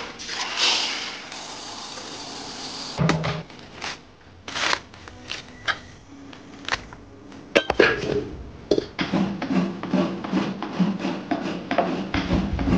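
Raw rice grains rustling as a hand digs into them, then a husked coconut being pulled apart, with a run of sharp knocks and tearing scrapes. Near the end a low hum sounds under further scraping.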